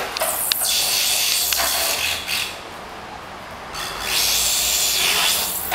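Plastic wheels of a toddler's push walker rolling over a tiled floor, a gritty rubbing hiss. It stops for about a second midway and starts again.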